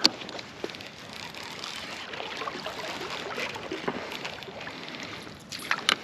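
River water trickling and sloshing around an inflatable kayak, with a sharp click at the start and a few more clicks near the end.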